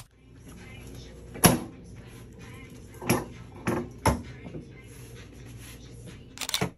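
A few sharp knocks at uneven intervals over a low steady room hum: the loudest about a second and a half in, three more in the middle, and a quick rattle of several just before the end.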